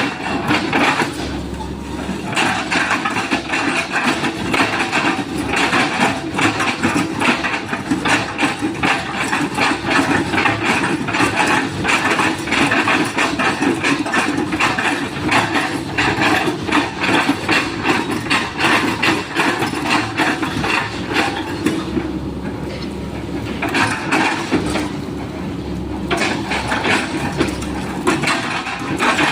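Sany SY135 excavator running under load while its bucket chops an oil palm trunk, with a dense, rapid crackle of splitting, crunching fibrous wood over the steady engine. The crackle eases briefly about three quarters of the way through.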